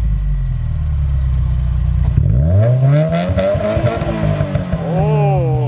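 2018 Subaru WRX turbocharged flat-four running through a newly fitted aftermarket catback exhaust. It idles, then about two seconds in it is revved once: the pitch rises smoothly to a peak and falls back to idle near the end.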